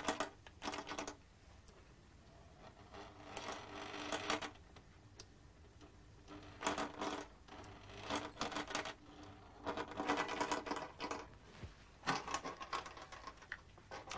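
Small stepper motor working a lever in repeated bursts of rapid clicking, each about a second long, each click one step of the motor driven by an electrical pulse.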